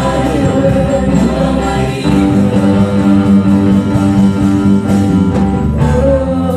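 Live gospel worship music: a group of women singing together over a band of keyboard and drum kit, with long held notes and a low bass line that shifts about two seconds in and again near the end.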